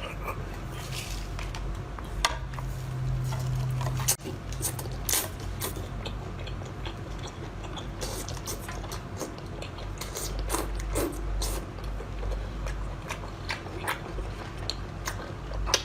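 Close-miked mouth sounds of a person eating: chewing and biting, with many short wet clicks and smacks over a steady low hum.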